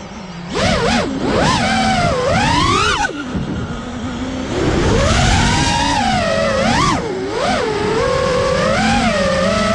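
5-inch FPV quadcopter's brushless motors (Hypetrain 2306 2450kv) and propellers whining, the pitch swooping up and down with each throttle punch and chop, with an easier stretch a few seconds in. Heard from the GoPro mounted on the drone.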